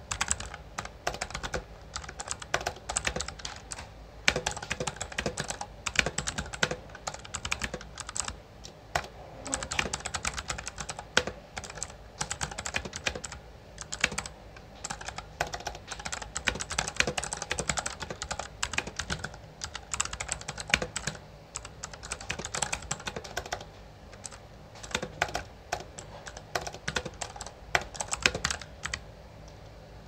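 Fast typing on an A4Tech Bloody B820R mechanical keyboard with clicky blue switches: a dense stream of key clicks with a few brief pauses.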